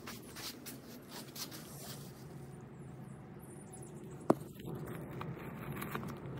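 Handling noise as a phone camera is moved and set down: soft rustles and light taps, then one sharp knock about four seconds in, over a steady low background hum.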